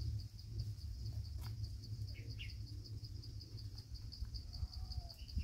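Insect chirping in a steady, fast, even pulse, high-pitched, over a low rumble; a couple of faint short chirps about two seconds in.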